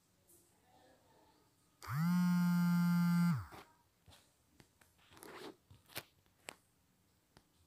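A loud steady buzz lasting about a second and a half, its source not shown, then a steel spoon scraping and clicking against a non-stick frying pan as a thick mixture is stirred.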